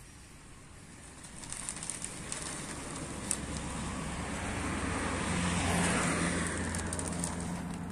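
A motor vehicle's engine approaching and passing, building over several seconds and loudest about six seconds in, over faint rustling and clicks as chopped corn silage is scooped into a plastic sack.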